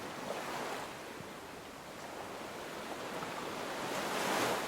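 Ocean waves washing in, a steady hiss of surf that swells gently toward the end.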